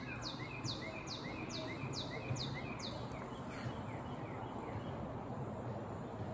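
A bird singing a quick series of repeated, falling high whistled notes, about two or three a second, which stops about three seconds in; a steady low background hiss runs underneath.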